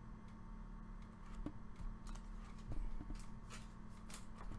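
Faint scattered clicks and light taps of trading cards being handled and set aside, with a few sharper clicks in the second half.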